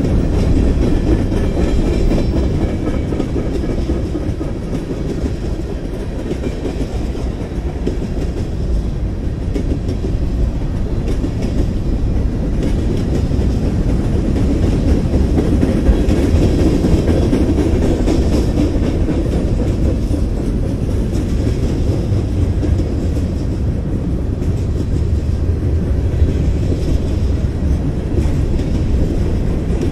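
BNSF mixed freight train's cars (tank cars, covered hoppers, gondolas) rolling past close by: a steady, unbroken rumble of steel wheels on the rails.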